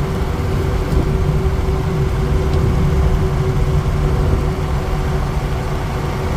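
Steady in-cab road and engine noise of a Ford E350 van cruising at about 70 mph: a low rumble from the 6.0 Powerstroke V8 turbodiesel and tyres, with a constant hum over it.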